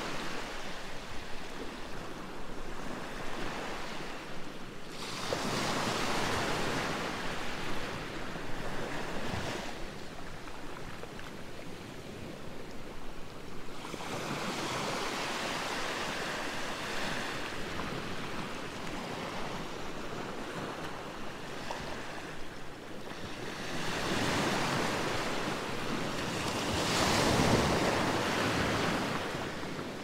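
Gentle sea waves washing onto the shore, the surf swelling and falling back in slow surges every several seconds, the strongest near the end.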